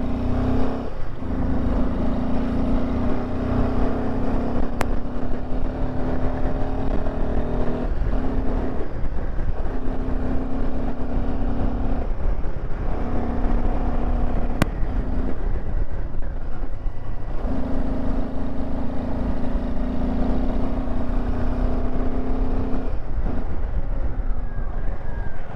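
Royal Enfield Himalayan 450's single-cylinder engine running under way on a rough gravel road. Its steady note drops away briefly several times, over a constant low rumble of wind and road noise.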